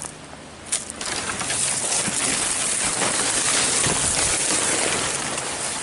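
Dry palmetto fronds and brush rustling against the camera as someone pushes through them. A steady, dense rustle starts about a second in and eases off near the end.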